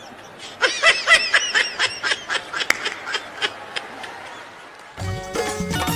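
A comic sound effect: a quick run of short, high-pitched, laugh-like honks, about five a second, thinning out by about three and a half seconds in. Music with drums starts near the end.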